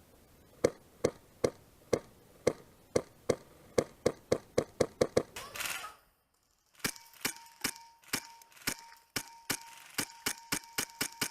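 Airsoft guns firing single shots in quick succession, about two to three sharp cracks a second, quickening toward the middle. After a brief break about six seconds in, the shots resume with a steady high tone running beneath them.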